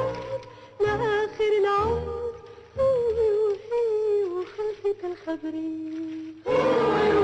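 A solo voice humming a wavering, ornamented melody in short phrases over faint low accompaniment, part of an Arabic film song. Near the end the full music with singing comes in louder.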